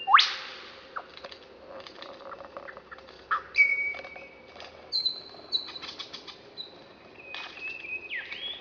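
Male superb lyrebird singing during its tail-over-head display, giving mimicked forest sounds: a loud, sharp upward whip-like sweep at the start, then a string of whistled notes held at different pitches, broken up by quick clicks and rattles.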